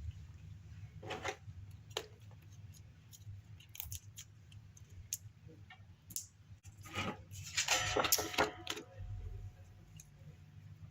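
A hardbound card-deck box being handled and opened: scattered small taps and clicks, then a couple of seconds of rustling about seven seconds in.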